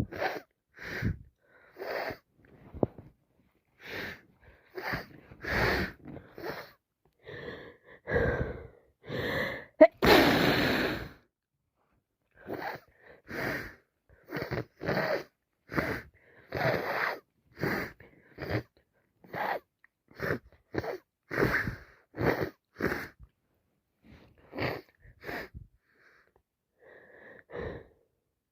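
A woman with a heavy cold sneezing and sniffling over and over, in short sharp bursts about one a second, with one longer, louder burst about ten seconds in.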